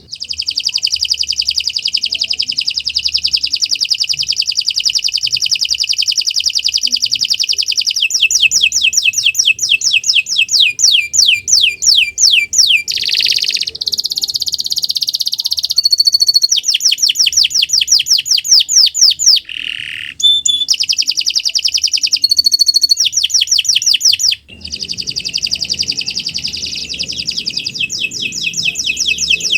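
Domestic canary singing a long, continuous song of rapid rolling trills. Each trill is a fast run of the same high note repeated, and the speed shifts from phrase to phrase. There are two brief breaks, one about two-thirds of the way through and one a few seconds later.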